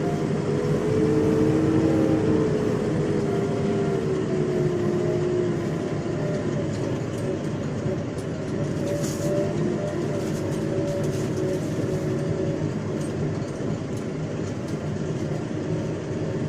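JCB 3DX backhoe loader driving along the road, its diesel engine and drivetrain running steadily, heard from inside the closed cab. A whine in the engine note falls slightly in pitch over the first few seconds.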